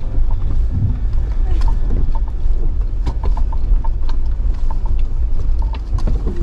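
Jeep Wrangler JL crawling over rough trail ground, heard from inside the cab: a steady low engine and drivetrain rumble with scattered knocks and clicks throughout.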